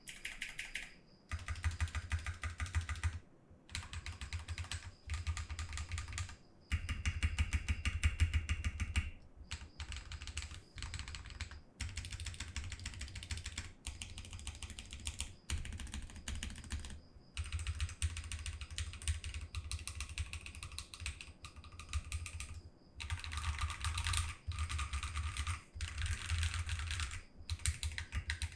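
Mechanical keyboard typing test on SA-profile ABS keycaps fitted to a Vortex VX5 Pro. It is fast, continuous typing in runs of a few seconds, with brief pauses between them and a low, deep thock under each run of keystrokes.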